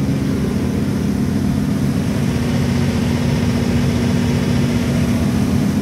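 Caterpillar XQ400 diesel generator set running steadily at its governed 1,800 rpm, an even, unchanging engine drone with a constant low hum.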